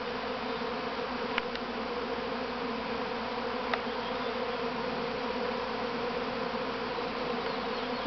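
Honey bee swarm in flight: the steady, even hum of thousands of bees' wings filling the air as the colony swarms.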